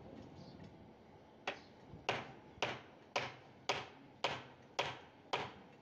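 Hand hammer striking steadily, about two blows a second for eight blows, each with a short ring.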